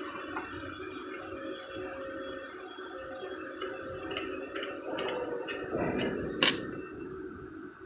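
Scattered sharp clicks, about half a dozen in the second half, over a low steady hum.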